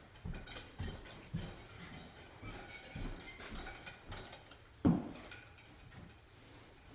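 A wooden shed door being handled and moved: scattered knocks and clatter, with one heavy thump about five seconds in.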